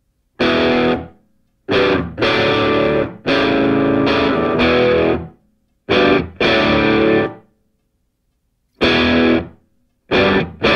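Intro music: distorted electric guitar playing chords in short stop-start bursts, each cut off sharply into silence.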